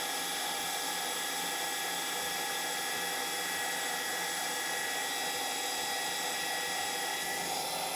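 AL960 metal lathe running steadily while turning a 4140 steel shaft down towards half an inch diameter: an even machine whine.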